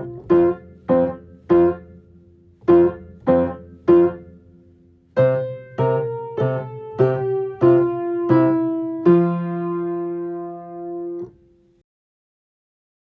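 Piano playing a simple passage: a run of short, detached chords, then a smoother phrase that ends on a held chord, cut off about eleven seconds in and followed by silence.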